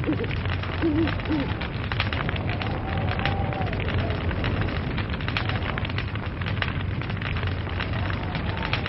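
Log fire burning, with dense, irregular crackling and snapping over a steady low rumble of the flames.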